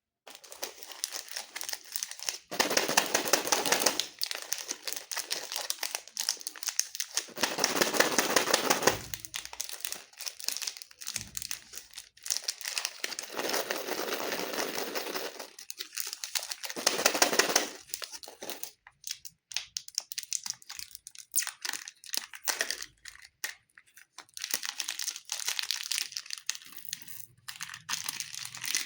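Plastic candy wrappers crinkling as they are handled, in several bursts of a few seconds each with short pauses between.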